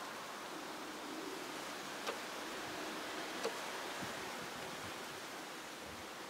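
Steady outdoor background hiss, like a light rustle of air and foliage, with two brief clicks about two and three and a half seconds in.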